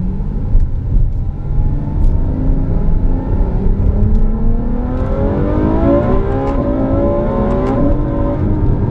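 Ferrari F12 Berlinetta's 6.3-litre V12 accelerating hard, heard from inside the cabin, its pitch climbing as it pulls up through first, second and third gears.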